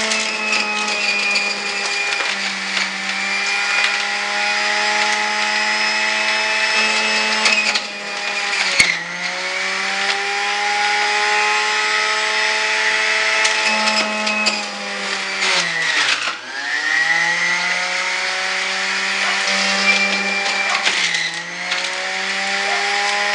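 Electric juicer motor running with a steady pitched hum as produce is pressed down its feed chute. The pitch sags sharply about eight seconds in and again around sixteen seconds as the motor is loaded, then climbs back. There is a sharp click near nine seconds.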